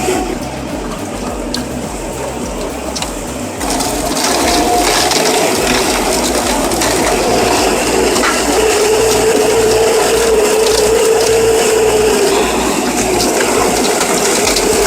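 Heavy shredding machine running with a steady grinding drone, somewhat quieter for the first few seconds, then louder.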